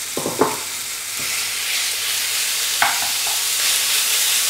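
Diced chicken breast in a soy-sauce and pumpkin-seed-oil marinade sizzling in a hot non-stick frying pan, the sizzle growing louder. A wooden spatula stirs and spreads the pieces, with a few knocks on the pan about half a second in and near three seconds.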